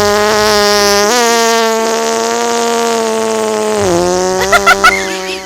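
A long, drawn-out fart sound effect: one steady low tone that steps up slightly about a second in and sags lower near four seconds, ending in three short, higher squeaky blasts.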